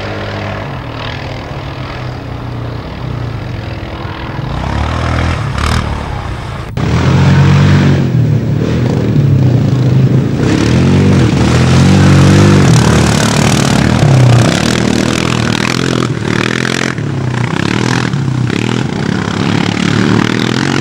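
Quad bike (ATV) engines revving hard through mud, the pitch rising and falling over and over. The sound jumps suddenly louder about seven seconds in.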